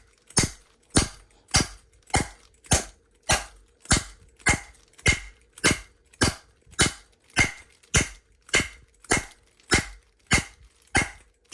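A Disecu padlock being struck with a wooden block in a steady rhythm, a sharp knock almost twice a second, in a beating test to force the shackle open.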